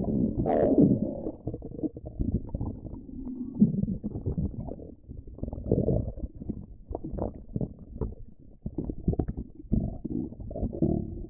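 Stomach growling and gurgling: a continuous run of irregular bubbling rumbles, with a short higher squeal about half a second in.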